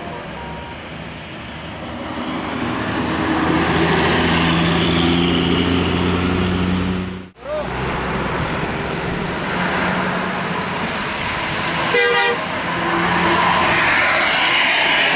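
Road vehicles driving past with engines running, swelling after about two seconds and cutting out for a moment about seven seconds in. A short horn toot about twelve seconds in.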